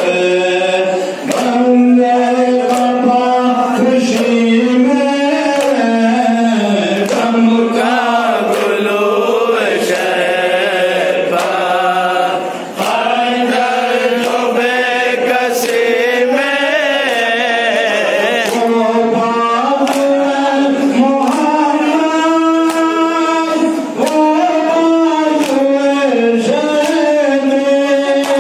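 Men chanting a noha, a Shia lament, in a steady rising and falling melody led by one reciter. Rhythmic chest-beating (matam) slaps come about once a second in time with the chant.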